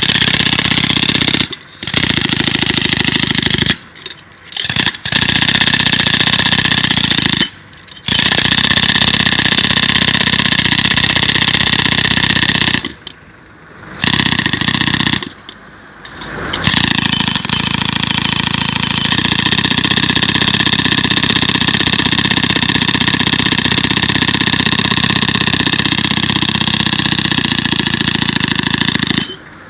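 A loud motor-driven machine running steadily. It stops briefly and starts again about five times in the first half, then runs on without a break.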